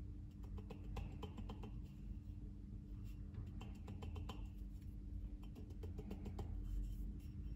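Fingers brushing and tapping around the metal rim of a moka pot's filter basket full of ground coffee, making small scratchy clicks in three short clusters. A steady low hum runs underneath.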